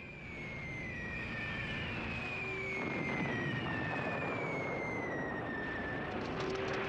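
Several overlapping whistles of falling bombs, each sliding down in pitch over a second or two. Beneath them a dense rumble of blasts builds and grows louder.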